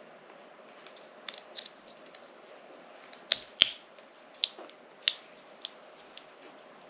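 Sharp, irregular plastic clicks and snaps of a flip-key shell and its folding-blade mechanism being handled and pressed together by hand, about a dozen in all, the loudest a pair about three and a half seconds in.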